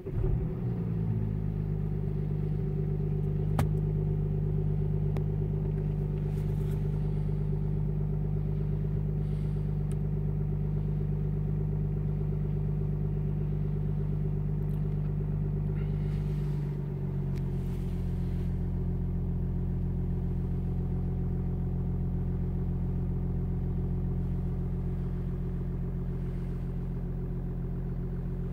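Audi A7's 3.0 TDI V6 diesel catching and starting from cold at −11.5 °C, heard from inside the cabin, then running at a steady fast cold idle. About 17 seconds in, the idle drops a little and settles lower.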